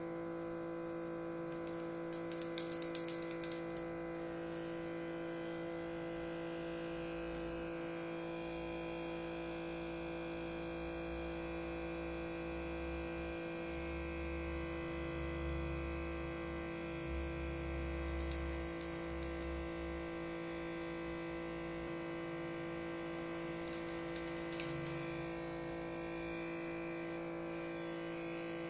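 Small motor of an electric suction lip plumper running with a steady hum while held against the lips, with a few faint clicks.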